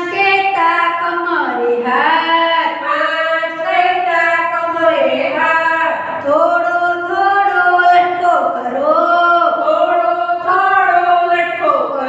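Women singing a Gujarati counting action song without instruments, a melody of long held notes.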